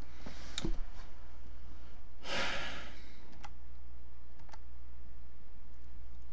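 A person sighing into a close microphone: a short breath about half a second in, then a longer, louder exhale about two seconds in. A few faint clicks follow, over a steady low hum.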